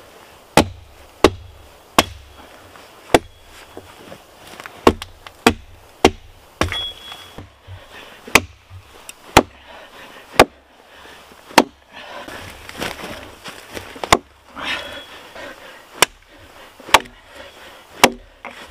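Axe chopping into a fallen spruce trunk: about sixteen sharp, irregular strikes, roughly one a second, with a stretch of rustling midway.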